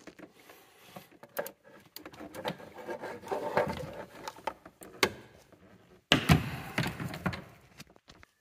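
Hand tools clicking and knocking against metal while undoing bolts on a bracket at the top of a gearbox. The clicks come irregularly, with a louder knock about six seconds in.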